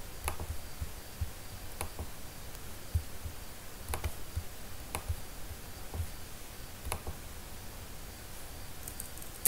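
Computer mouse clicking: about six single clicks spaced irregularly, one to two seconds apart.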